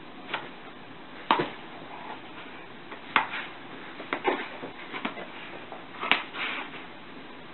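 Yellow Labrador snapping its jaws at a cat: a string of sharp, irregular clacks, about seven, with brief scuffles between them.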